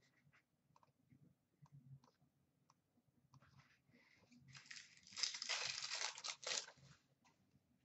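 Foil wrapper of an Upper Deck hockey card pack crinkling and tearing as it is ripped open, a crackly burst of about two and a half seconds starting about four and a half seconds in. Before it come a few faint taps.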